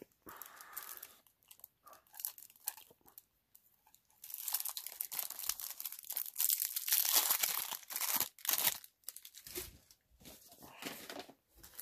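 Product packaging, mostly plastic wrap, being torn open and crinkled by hand. It starts as scattered rustles, turns into a dense run of crinkling and tearing a few seconds in that lasts about five seconds, and ends in sparse handling noises.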